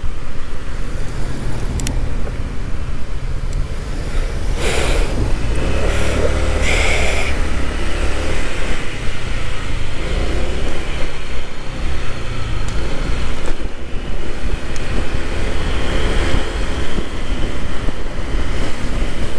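Motor scooter riding at low speed through traffic: its engine running with a steady rumble of road and wind noise at a helmet-mounted microphone. Two brief louder rushes of noise come about five and seven seconds in.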